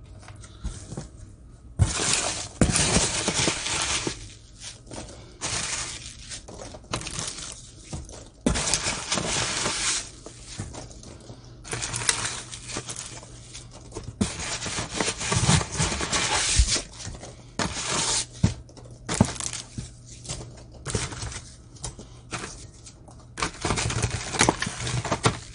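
Foam packing peanuts and plastic-wrapped knife packages rustling in a cardboard box as a hand digs the peanuts out, in irregular bursts of a second or two.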